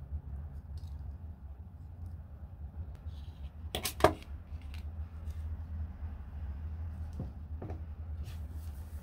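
Light clicks and ticks of thin silver craft wire being bent and handled by hand: a quick cluster of sharp clicks a little under halfway through, and two faint taps later as the finished wire snail is set down on a cutting mat, over a steady low hum.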